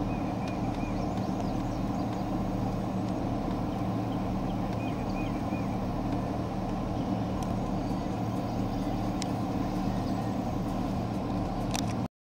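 A vehicle engine running steadily with a low, even drone, with faint short chirps above it. It cuts off abruptly just before the end.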